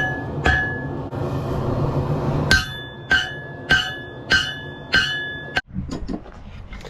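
Hammer blows on hot Damascus steel over an anvil, each strike leaving a bright metallic ring, in a steady rhythm of about one and a half blows a second. A single blow, then a few seconds of steady hiss, then five more blows that stop about a second before the end.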